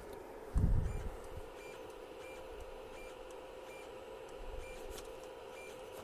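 3D printer's fans humming steadily, with short high chirps from the printer about once a second as its control knob is turned step by step to lower the Z axis. A dull low thump about half a second in.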